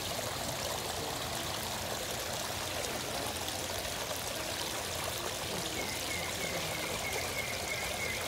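Small waterfall spilling over rocks into a koi pond: steady splashing and trickling water.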